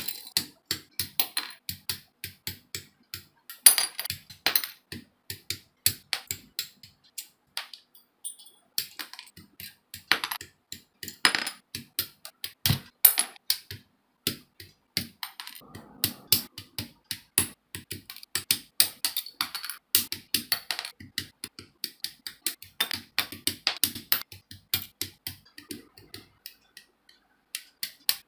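Hard plastic model-kit runners (sprues) clicking and clattering as they are handled, with sharp snips of hobby side cutters cutting parts off the runner. Irregular clicks, several a second, with a couple of short pauses.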